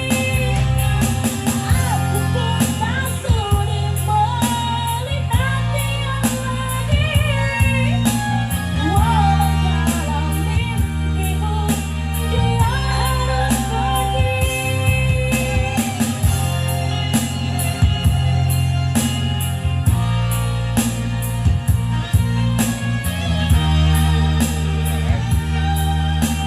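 A woman singing a pop melody over backing music with a steady drum beat and bass.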